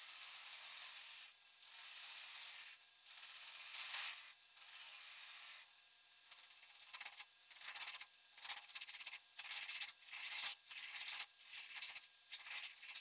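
Turning tool taking light cuts on a stair spindle spinning on a wood lathe: a hiss of cutting, first in passes of about a second each, then from about seven seconds in as quicker, louder strokes.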